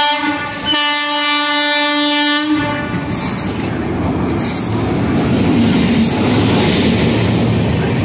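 An Indian Railways WAP-7 electric locomotive's horn sounds two blasts, a short one and then a longer one of nearly two seconds. After that comes the steady running noise of the arriving locomotive and its coaches rolling past alongside the platform.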